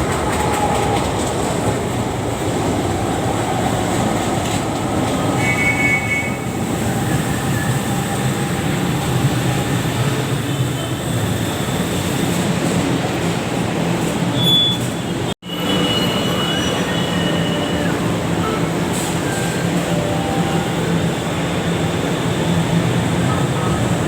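LRT-1 third-generation light rail train running on the elevated line: a steady rolling rumble with faint wheel squeal and a short rising-and-falling motor whine. The sound cuts out for an instant about fifteen seconds in.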